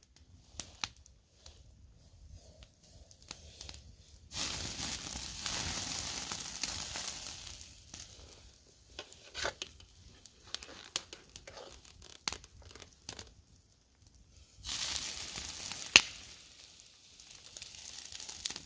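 Grease from browned ground meat poured from the pan onto a campfire, hissing and crackling in two bursts: a longer one about four seconds in and a shorter one near the end. Small clicks and taps of the pan being handled come in between.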